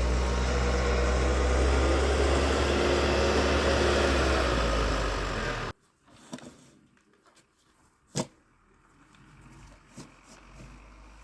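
Vehicle engine running steadily with a low hum and a rushing noise, cutting off abruptly a little past halfway. A much quieter stretch follows, with a few faint ticks and one sharp click.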